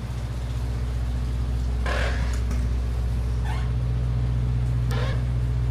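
Sightseeing boat's engine idling with a steady low hum, and three short higher sounds over it.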